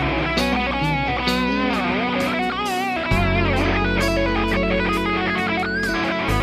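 Electric guitar playing improvised single-note lead lines with wide vibrato on held notes, over a backing track with drums and sustained bass notes.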